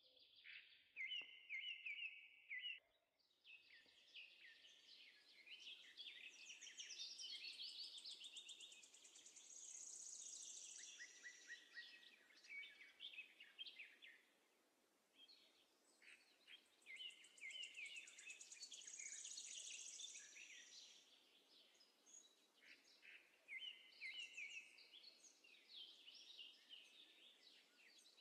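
Faint birdsong: high chirps and rapid trills coming and going in phrases.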